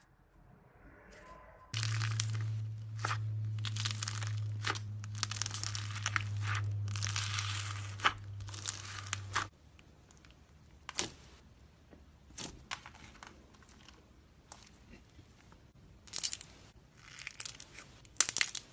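Slime being squeezed and worked by hand, crackling and crinkling in dense bursts over a low steady hum that stops about halfway through. After that come scattered small clicks and pops, with one more crackly burst near the end.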